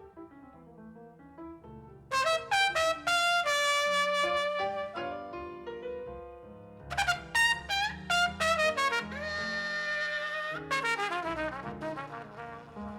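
Recorded music played back over Elfton Vegas II four-way loudspeakers and picked up in the room: a brass-led piece that starts softly over bass, turns loud about two seconds in, and has a long held note with vibrato later on.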